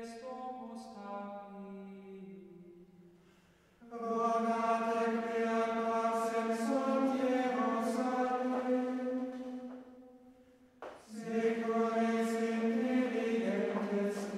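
Slow, solemn singing with long held notes: a soft phrase that fades away, then a louder phrase from about four seconds in, a brief pause near eleven seconds, and another phrase.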